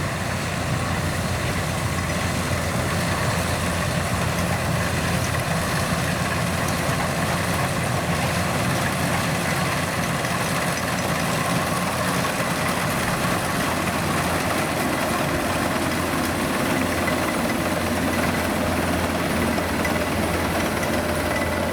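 Kubota DC-93G rice combine harvester working in the field: its diesel engine runs steadily under the even wide noise of the cutting and threshing machinery.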